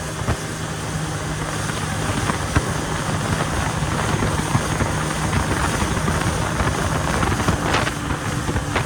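Yamaha jet ski's engine running at speed across the water, a steady drone heavily overlaid by wind noise on the microphone.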